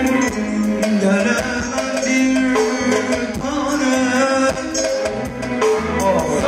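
Live band music: a melody carried over a steady drum beat.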